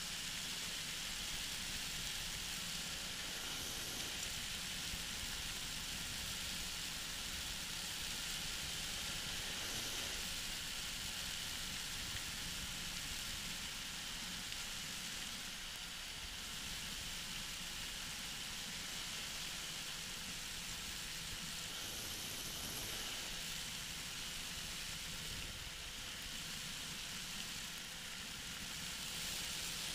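Steady in-flight noise of a flexwing microlight trike cruising: an even hiss of wind and engine, with a faint steady hum beneath.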